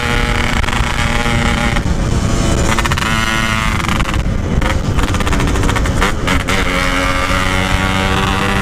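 Yamaha RX-King 135cc two-stroke engine running hard through an aftermarket exhaust while riding, with the engine note briefly dropping away a few times as the throttle is eased.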